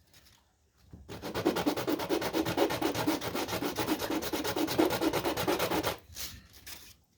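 Hand sanding with quick, even back-and-forth strokes, about ten a second. The strokes start about a second in and stop about six seconds in.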